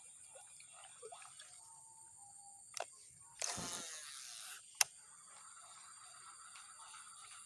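Steady high-pitched insect trilling throughout. About halfway through it is broken by a click, a rushing hiss lasting about a second, and then a sharp click.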